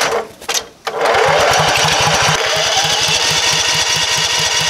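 Portable generator's gasoline engine being cranked by its electric starter, jump-started from a truck battery: a couple of short bursts, then from about a second in steady loud cranking at about five or six beats a second. It turns over without firing, in line with a fuel-starved carburetor.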